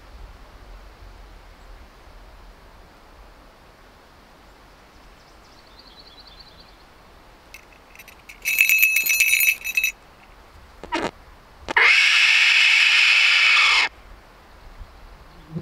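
Falconry bells on a red-tailed hawk's legs jingle for about a second and a half as the hawk scratches its head, with a couple of light clinks after. Then the hawk gives one loud, hoarse scream lasting about two seconds, which cuts off sharply.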